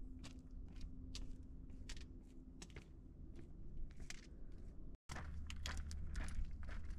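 Footsteps on a stony mountain trail, about two crunching steps a second. The sound breaks off abruptly about five seconds in, then resumes with closer, quicker steps.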